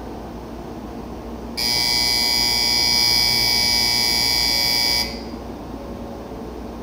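Shinkansen platform departure bell: a steady electronic buzzing ring that starts about a second and a half in, lasts about three and a half seconds and stops sharply. It signals that the train's doors are about to close for departure.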